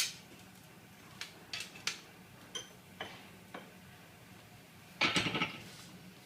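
Scattered metallic clinks and knocks from a hacksaw and steel cable tray being handled at the vise, one with a brief ringing tone about halfway through, then a louder half-second clatter near the end.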